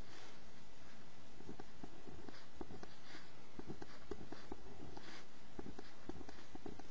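A pencil writing numbers on lined notebook paper: short strokes that scratch and tap against the pad, coming in quick, irregular runs.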